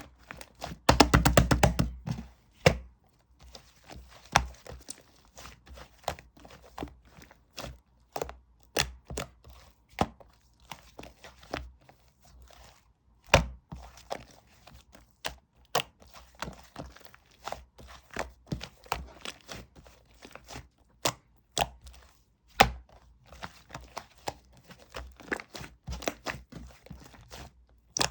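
Hands playing with slime: pressing, poking and stretching it, giving irregular sharp clicks and pops as air pockets burst. About a second in comes a dense rapid run of clicks lasting about a second, and a few heavier pops with a dull thud land later.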